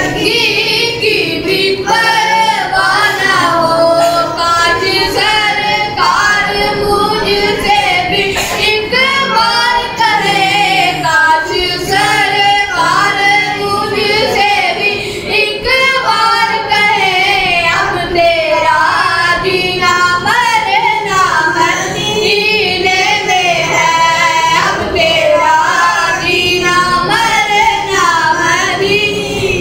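Boys singing a naat, an Urdu devotional song in praise of the Prophet, into a microphone: a continuous sung melody with long, wavering held notes.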